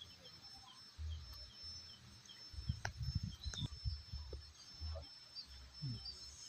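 Outdoor waterside ambience: faint high chirps repeating about three times a second over a steady thin high tone, with low rumbling bumps on the microphone, heaviest around the middle.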